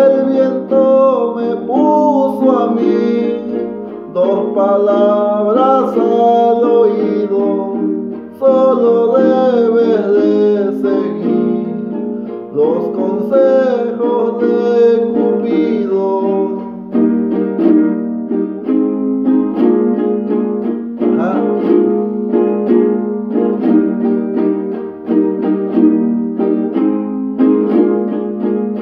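A jarana jarocha, the small strummed guitar of son jarocho, strummed in a steady rhythm while a man sings verses over it. The singing runs through the first half and drops out, then returns briefly a little past the middle, and the strumming carries on alone to the end.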